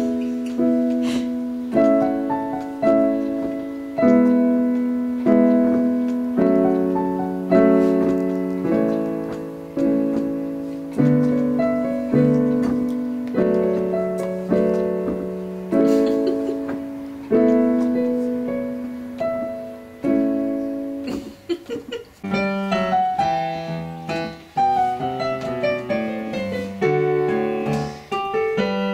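Casio Privia digital piano played by a child: a slow series of block chords, each struck and left to die away, about one a second. After a short pause about two-thirds of the way in, quicker runs of single notes climb and fall.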